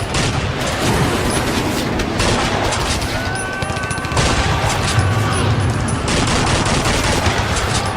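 Sound effect of a Second World War battle: dense, continuous gunfire, rapid overlapping shots in the manner of rifle and machine-gun fire, with no pause.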